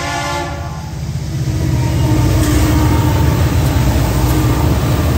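Diesel locomotive horn ending its blast about half a second in, then the lead diesel freight locomotives passing close by, their engines running loud, building from about a second in.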